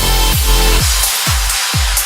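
Electronic dance music with a steady kick drum about twice a second. About a second in, the fuller backing drops away, leaving the kick and hi-hats.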